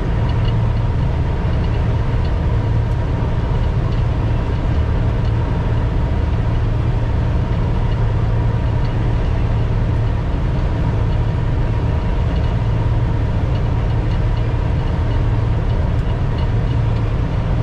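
Laverda 2760 MCS combine harvester running steadily while harvesting wheat, heard from inside the cab: a continuous low engine drone with a steady, higher whine over it.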